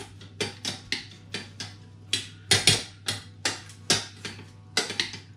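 A metal utensil knocking against a stainless steel saucepan while potatoes are being mashed in it: a string of sharp, irregular clacks, two or three a second.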